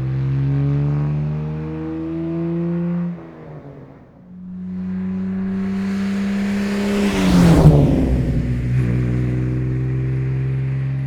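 1951 Jaguar XK120's 3.4-litre straight-six engine accelerating with rising pitch, cut off after about three seconds. After a short lull the car's engine returns at a steady tone, then passes by with a loud rush and a drop in pitch about seven and a half seconds in, and runs on steadily.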